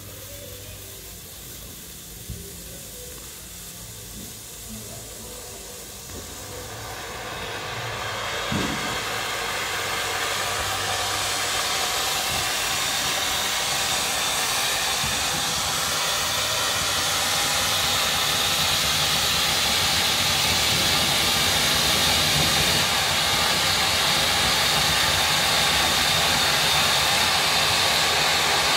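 Weco Bugano Color Stars firework fountain burning: a soft sizzle during the pink-flame phase, then from about seven seconds in a loud, steady hiss as it sprays a tall column of sparks, swelling and then holding. A brief thump about eight and a half seconds in.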